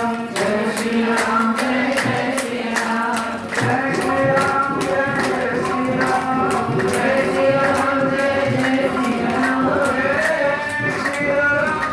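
Devotional kirtan: voices chanting in long held notes over a steady percussion beat.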